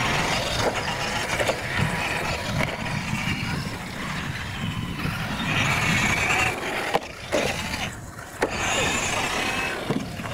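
Radio-controlled monster trucks racing on a dirt course, their drive motors and gears whining as they accelerate. Sharp knocks come about seven and eight seconds in.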